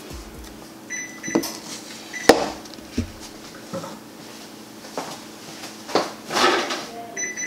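Short electronic beeps from an oven's control panel, sounding a few times, over a steady low hum, with knocks (the sharpest about two seconds in) and a rustle of handling near the end. The oven has just broken down and shut itself off.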